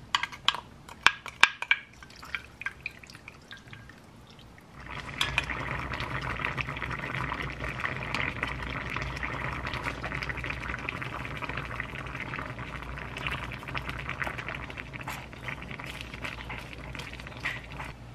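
Thick seasoning sauce and water poured over Spam and tofu in a pan, with wet plops and clicks for the first few seconds. From about five seconds in, the Spam and tofu braise simmers steadily in the pan, a continuous bubbling.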